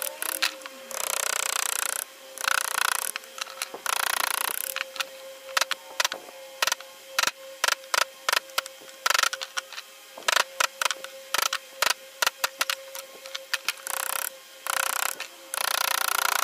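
Small hammer tapping a wood-carving chisel into a hardwood panel: a fast, irregular run of sharp knocks, several a second, with short pauses. A faint steady hum sounds under the middle of it, and stretches of hiss come near the start and again near the end.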